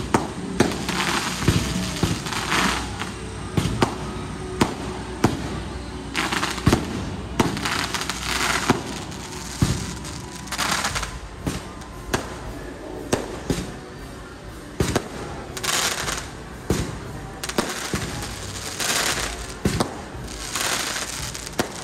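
Fireworks display going off in quick succession: sharp bangs about one or two a second, with stretches of high-pitched hissing and crackling between them.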